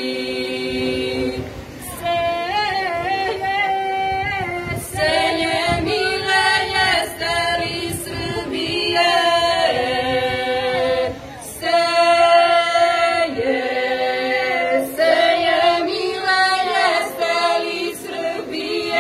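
A women's folk singing group sings unaccompanied in several parts, holding long notes. The phrases break off briefly about two seconds in and again around eleven seconds.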